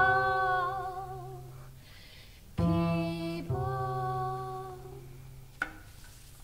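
A woman's voice singing two long notes with a slight waver, each fading away, over low held double bass tones. Near the end comes a short sharp click of paper as a sheet-music page is turned.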